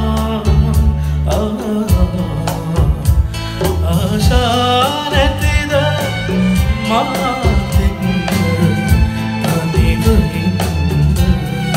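A male singer performs a Sinhala pop song live with a band. His voice rises and falls over a steady drum-kit beat with guitar and keyboard.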